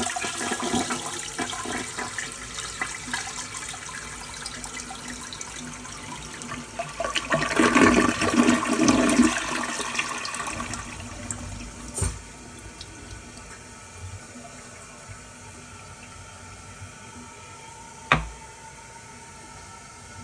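1988 American Standard Cadet comfort-height toilet flushing through a tilt valve: water rushing into the bowl, swelling into a loud gurgling surge about eight seconds in as the bowl empties. The sound then drops to a quieter steady hiss as it refills, with a click at about twelve seconds and a sharp knock near the end.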